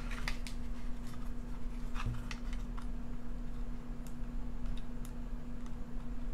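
Light plastic clicks and handling sounds from a battery being fitted into and pressed against a small handheld battery tester, thickest in the first few seconds, then a few scattered clicks. A steady low hum runs underneath.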